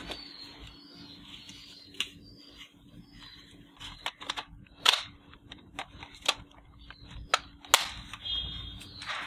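Plastic clicks and knocks of a toy AK-47 rifle being handled as a scope is fitted and snapped onto its top rail: a string of short sharp clicks, the loudest about five seconds in and again near eight seconds.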